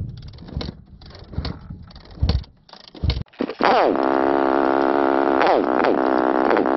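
Scattered knocks and clatter, then about three and a half seconds in an off-road vehicle's engine fires up with a high rev that falls away to a steady idle. Near the end the throttle is blipped twice, each time rising and falling back.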